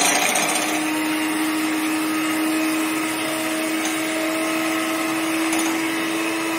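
iBell electric hand mixer running at a steady speed, its twin beaters whisking two raw eggs in a plastic bowl: an even motor whir with a constant hum.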